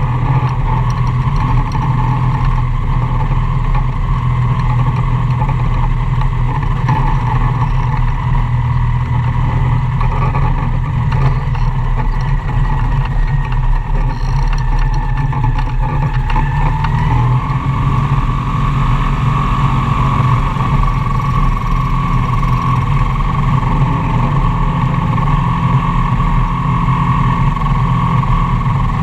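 Magni M-22 Voyager gyroplane's engine and pusher propeller running at takeoff and climb power, heard from the open cockpit as a loud, steady drone. About two-thirds of the way through, a higher whining tone in the drone steps up slightly in pitch.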